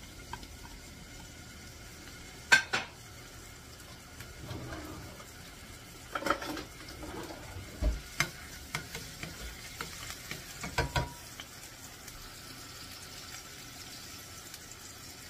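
Minced garlic sizzling in olive oil in a frying pan, stirred with a utensil that knocks and scrapes against the pan several times, loudest about two and a half seconds in.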